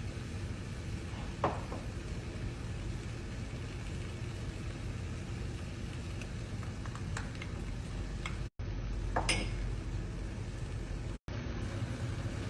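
Cooking in a pan: a steady low hum runs throughout, with a few light clinks of a utensil against the pan. The sound cuts out completely for a moment twice.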